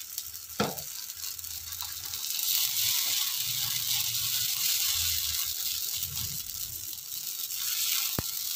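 Semolina handvo batter sizzling in hot oil on an iron tawa as a steel ladle spreads it out, with light scraping and a sharp click of the ladle on the pan about half a second in and again near the end.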